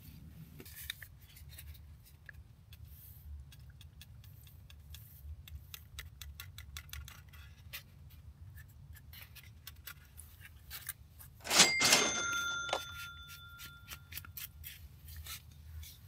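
Scattered light ticks and taps, then a loud metallic clink about twelve seconds in that rings briefly with several high tones before fading.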